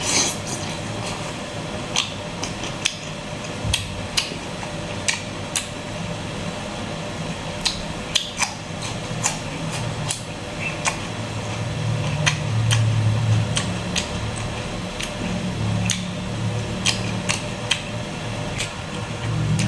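Close-miked eating sounds of a person chewing squid salad, with frequent irregular sharp clicks and crunches.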